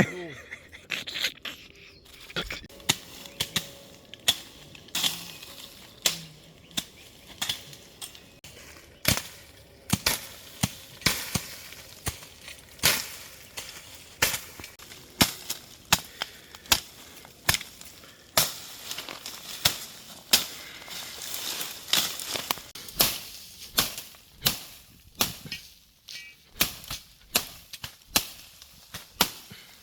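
Repeated chopping blows of a hand tool clearing vegetation from farmland, sharp strikes coming unevenly at roughly one to two a second.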